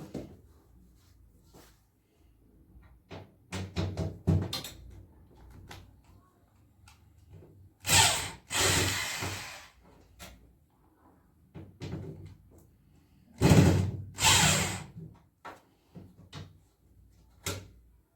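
Knocks and clatter of parts and tools being handled while an LG washing machine is taken apart for a bearing change: a cluster of short knocks, then two louder, longer noisy sounds about five seconds apart, and a sharp knock near the end.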